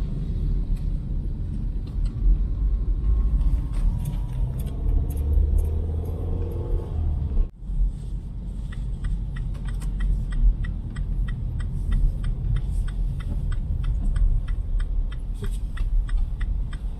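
Road and engine rumble inside a moving car. About halfway through, a rapid, even ticking starts and keeps going.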